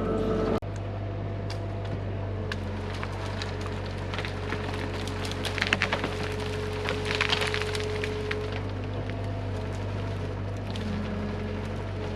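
Excavator's diesel engine running steadily while wood cracks and splinters, with bursts of snapping about halfway through as brush and branches break under the machine.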